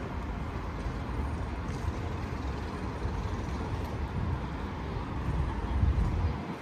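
City street traffic: a steady low rumble of passing vehicles, swelling briefly near the end.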